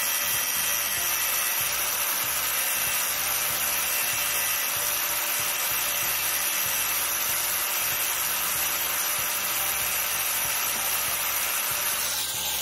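Angle grinder with a grinding wheel running steadily against steel, grinding weld build-up on a flange's machined seat face down to within a few tenths of a millimetre of the surrounding surface. The sound eases off near the end as the grinder is lifted away.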